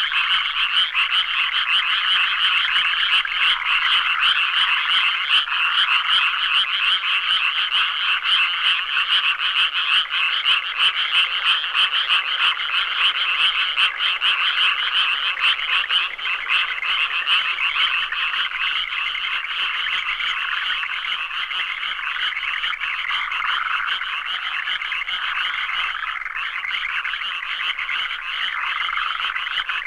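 A dense chorus of many frogs calling at once, their rapid pulsed croaks overlapping into a continuous, steady din.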